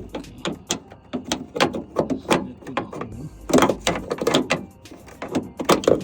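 Irregular sharp metal clicks and clanks of hand tools working the nuts and bolts of a door hinge on a car door, coming in clusters with a loud knock at the start.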